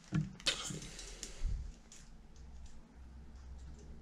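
A few light clicks and handling noise as multimeter test probes and their leads are handled and pressed onto the terminals of an oven fan heating element, then a faint low rumble of handling.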